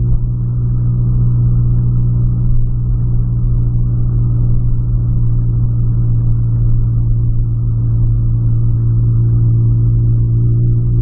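2008 Volkswagen Polo heard from inside the cabin while cruising: a steady engine drone at constant pitch, with road noise underneath.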